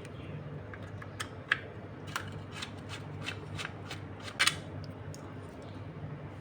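Irregular small clicks and scrapes of a screwdriver working out the screws of an electric iron's cover, with one sharper click about four and a half seconds in.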